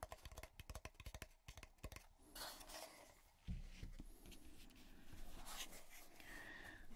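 Fingertips tapping and scratching on a thick cardboard box, a quick run of light taps followed by softer rubbing and sliding on the cardboard.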